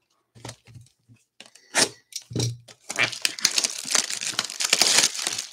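Clear plastic shrink wrap being torn and crinkled off a 2023 Bowman baseball card box: a few light knocks as the box is handled, then a dense crackling run from about halfway in.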